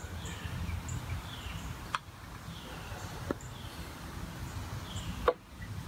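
Birds calling over and over, each call a short falling chirp with a thin high note. Three sharp knocks cut in, the last and loudest near the end.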